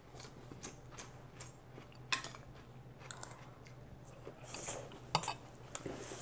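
Metal spoon clinking and scraping against a ceramic rice bowl: a scatter of faint, light clinks, the loudest about two seconds in and a few more close together near the end.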